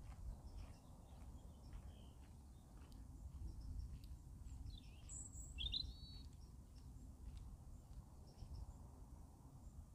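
Faint outdoor ambience: a low, uneven rumble of wind on the microphone, with a couple of brief bird chirps about five to six seconds in.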